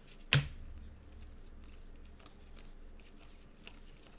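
Trading cards being handled and flipped through by gloved hands, with one sharp click about a third of a second in and faint card ticks after it.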